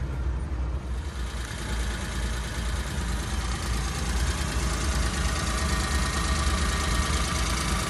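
Suzuki F6A 660 cc three-cylinder engine of a 1995 Suzuki Carry mini truck idling steadily.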